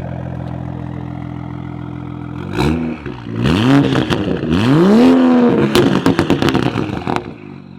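Toyota GR Supra (MK5) B58 turbocharged straight-six running steadily, then revved hard, climbing and falling back in two long sweeps, followed by a rapid series of exhaust crackles and pops as it comes off the throttle. It is really loud.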